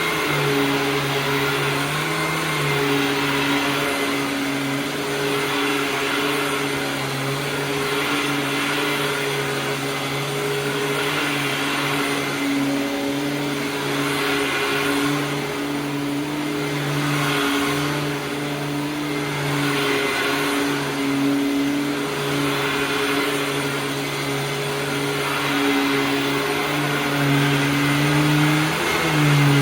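Hoover WindTunnel Supreme upright vacuum cleaner running, a steady motor hum with airflow noise, its pitch dipping briefly near the start and again near the end.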